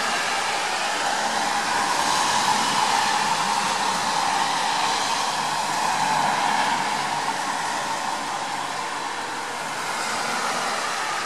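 Steady rushing hiss of rain falling. It is louder through the first half and eases off after about eight seconds.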